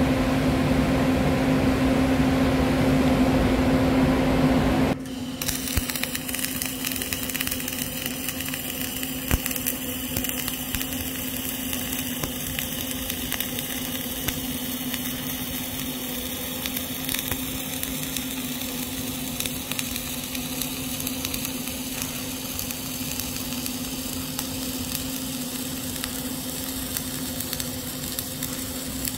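A louder steady noise for about the first five seconds cuts off suddenly, giving way to the steady crackling sizzle of a CO2-shielded flux-cored arc welding arc, with a constant low hum, as the fourth pass of a horizontal (2G) groove weld is laid.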